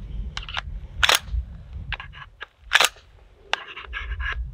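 Glock pistol's slide racked one-handed against a belt, giving several sharp clacks as it is pushed back and snaps forward, the two loudest about one and three seconds in. The racking is a torture test of the factory polymer sights, to see whether they shear off.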